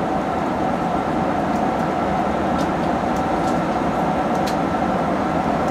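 Steady cabin noise of a Boeing 737-800 in flight: the even rush of airflow and engines, with a faint steady hum running through it.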